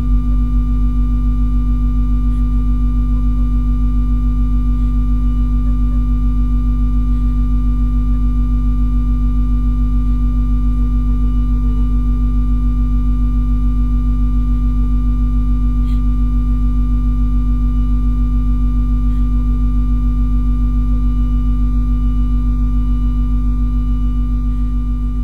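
Electronic drone music: a steady, held chord of sustained low tones with a fast, even pulsing in its loudness, beginning to fade out near the end.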